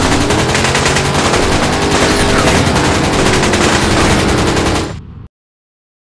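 Loud sound effect of rapid automatic gunfire, a dense continuous stream of shots. A tone rises underneath it in the first second. It cuts off suddenly about five seconds in.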